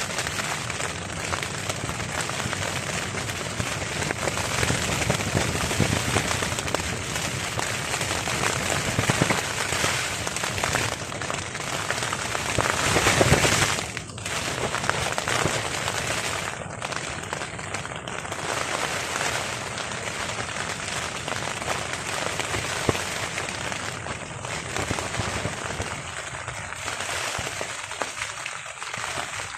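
Heavy rain pattering and crackling on a tarp overhead, with strong gusting wind. A gust swells to the loudest point about halfway through and drops off suddenly.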